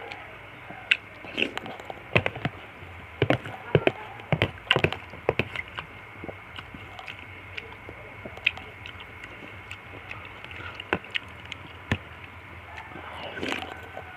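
Eating sounds from a bowl of fruit soup with nata de coco: a spoon clicking sharply against the bowl, many times in the first few seconds and then now and then, with chewing between. Near the end there is a short, noisier burst.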